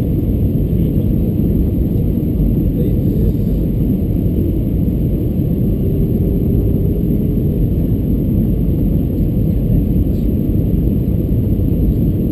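Steady low cabin rumble of an Airbus A320-214 in flight, its CFM56 engines and the airflow over the fuselage heard from inside the passenger cabin, with a faint steady tone coming in about halfway through.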